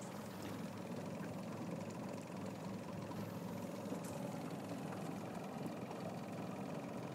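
Motorboat engine running steadily as the boat moves along: an even, low drone.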